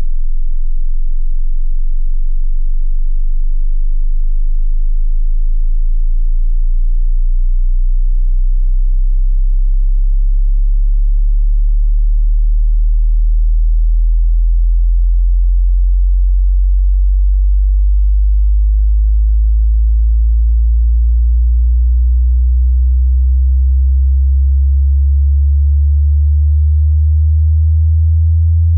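A pure sine-wave test tone sweeping slowly upward in pitch, from a very deep hum to a low bass tone, at a steady loud level.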